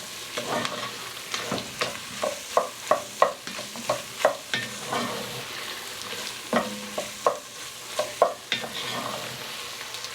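Spoon stirring onion, bell pepper, celery and garlic sautéing in a pot: uneven scrapes and clacks against the pot over a steady sizzle.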